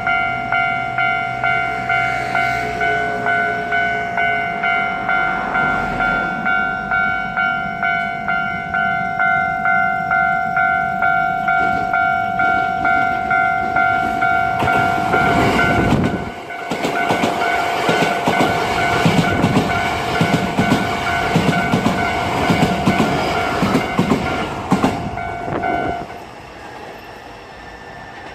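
Japanese level-crossing warning bell ringing at about two strokes a second. About halfway through, a Hankyu Takarazuka Line train passes over the crossing, its wheels rumbling and clacking over the rail joints. The bell stops near the end as the train clears.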